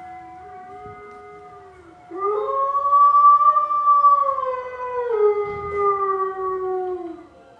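Recorded animal howls: long, drawn-out pitched calls from more than one animal overlapping, each held for several seconds and sliding slowly down in pitch, much louder from about two seconds in.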